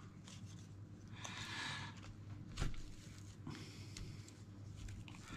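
Faint rustle of a raffia strand being drawn through holes in a birch bark rim, with a single sharp click about halfway through.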